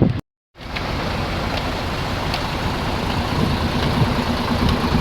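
Heavy bus engine idling steadily, after a brief cut to silence just after the start.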